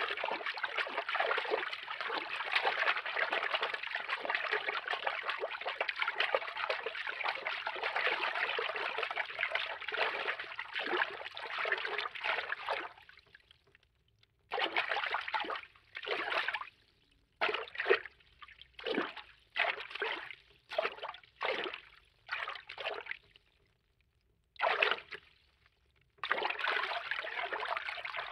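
Cartoon underwater water-movement foley: a steady trickling, sloshing run of moving water that fades out about halfway through. It then comes back as a dozen or so short separate bursts of water movement and turns steady again near the end.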